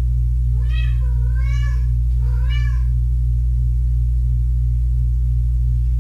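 A kitten meowing twice in the first three seconds, a longer wavering meow and then a shorter one, high-pitched. A loud, steady low hum runs underneath throughout.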